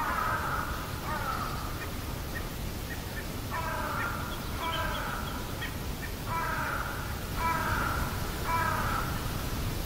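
Crows cawing: about seven harsh caws, roughly in pairs with short pauses between, over a steady low rumble.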